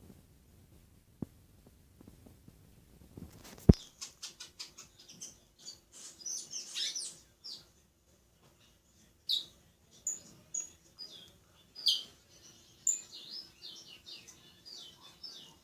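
Caged songbird, a congo bajero, singing a fast, busy run of high chirps and short falling whistles that starts just after a single sharp knock about four seconds in.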